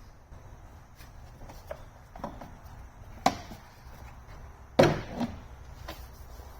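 A few scattered knocks and clunks of parts and hand tools being handled, a sharp one about three seconds in and the loudest, a double clunk, near five seconds.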